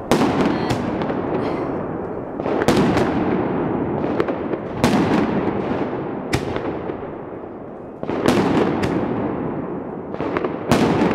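Aerial fireworks launched from the ground and bursting overhead: a series of loud sharp bangs, roughly one every second or two and sometimes in quick pairs, each trailing off in a long echo between the surrounding apartment buildings.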